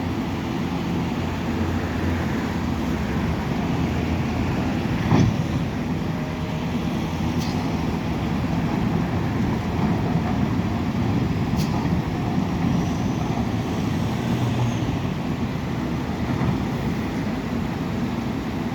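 Diesel engines of heavy earthmoving machines, a bulldozer and backhoe loaders, running steadily as they work, with a sharp knock about five seconds in.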